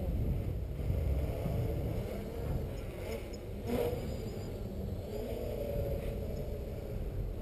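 Distant quadcopter with SK3 2822 brushless motors and 8x4.5 props buzzing in acro flight, its pitch wavering up and down as the throttle changes. A steady low rumble runs underneath, with a brief rush of noise about four seconds in.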